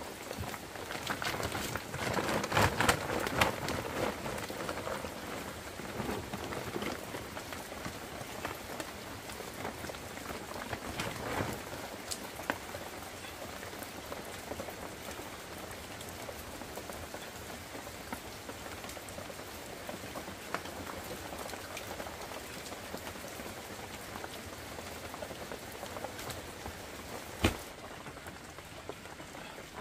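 Steady rain falling and pattering on surfaces, louder for the first few seconds, with one sharp knock near the end.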